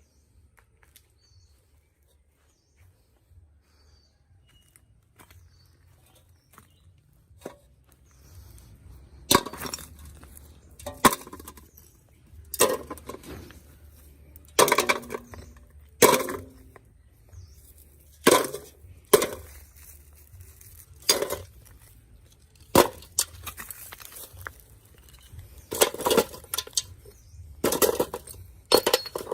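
Sharp clinks, clicks and short scrapes of small hard phone parts being handled on a hard work surface as a broken Samsung Galaxy Note 3 is worked on. The first several seconds hold only faint ticks; after that a knock or scrape comes every second or two.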